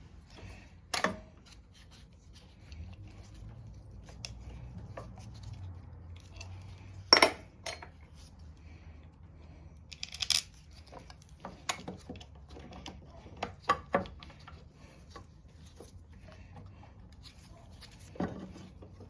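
Small metal parts and hand tools clinking and knocking, with sharp clicks scattered throughout and the loudest about seven seconds in, as the carburetor throttle linkage on a Tecumseh 6.5 hp mower engine is worked back into place.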